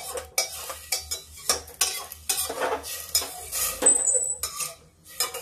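Perforated metal ladle stirring rice and water in an aluminium pressure cooker, scraping and knocking irregularly against the pot's sides and bottom.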